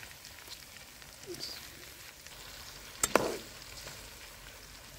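Chicken pieces and whole tomatoes sizzling in hot cooking oil in a steel karahi, a steady hiss. The slotted steel spoon stirs them and strikes the pan once with a sharp clank about three seconds in.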